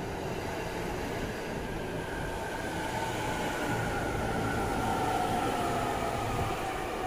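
JR East E231-series electric commuter train running past at close range: steady rumble of wheels on the rails, with a motor whine that slowly falls in pitch.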